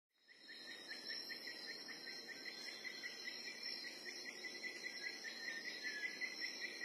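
Crickets chirping in a steady, rapid pulsing rhythm, faint, fading in just after the start.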